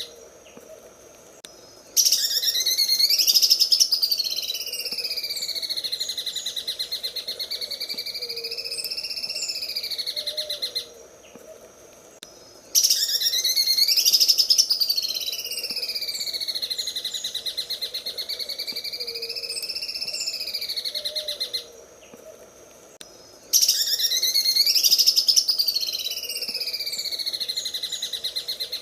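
Green leafbird (cucak ijo) song in the 'sewing machine' style: a very fast, stuttering run of notes whose pitch swings up and down, given in three long phrases of about nine seconds, each separated by a pause of about two seconds. Each phrase starts loudest and repeats almost the same, as a looped training recording.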